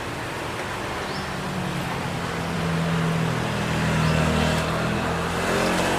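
A motor vehicle's engine running close by, growing louder through the middle and rising in pitch near the end, over steady street traffic noise.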